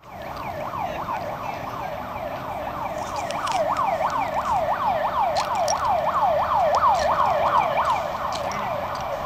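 Emergency vehicle siren in a fast yelp, its pitch sweeping downward over and over, about three times a second. It grows louder toward the last couple of seconds and then eases off a little.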